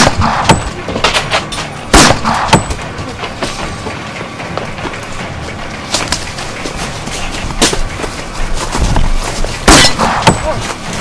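Pistol shots: three loud, sharp reports, one at the start, another about two seconds later and a third near the end. Between them are smaller cracks and rustling from running through undergrowth.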